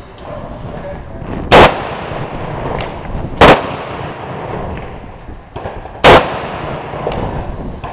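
Three rifle shots from an M1 Garand fitted with a ported gas plug, firing Federal Power Shock 180-grain soft points. The shots come about two to two and a half seconds apart and are loud enough to clip.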